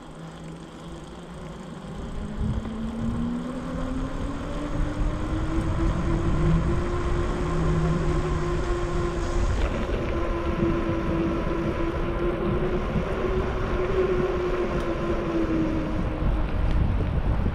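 Bicycle rolling along fresh asphalt: rumbling wind and road noise and a hum that rises in pitch as the bike picks up speed about two seconds in, then holds fairly steady and dips slightly near the end.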